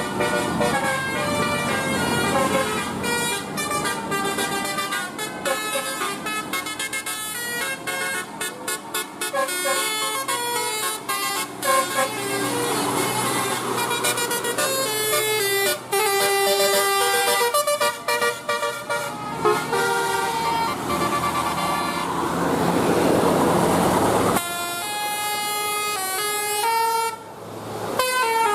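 Bus telolet horn: a set of musical air horns playing a quick melody of held notes that keep stepping up and down in pitch. There is a short rush of noise about two-thirds of the way through.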